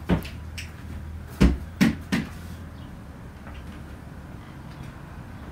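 Four short knocks in the first two seconds or so, the loudest a deep thump about a second and a half in, then quiet room tone with a low hum.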